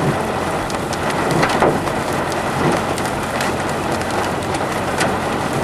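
Steady rain falling on a storm chasers' parked vehicle, a dense hiss with many sharp drop hits scattered through it.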